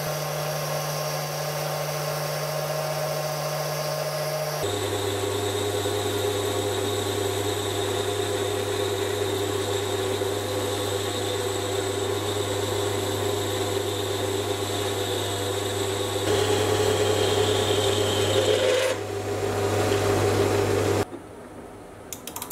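Sieg C3 mini metal lathe running steadily while a carbide insert takes roughing cuts on 12L14 steel. The hum jumps to a different pitch a few seconds in and again later, and the machine sound falls away shortly before the end.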